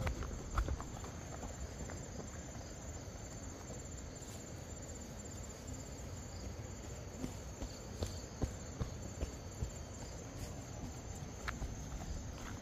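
Steady high-pitched chirring of insects, such as crickets or cicadas, with a few scattered soft clicks and knocks, likely footsteps.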